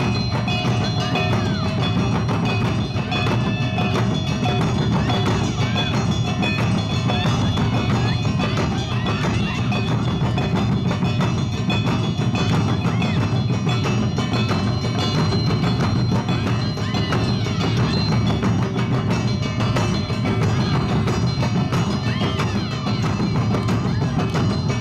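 Awa odori festival music played live by a dance troupe's band: drums and metallic gong-like percussion, with pitched lines gliding over a dense, continuous mix.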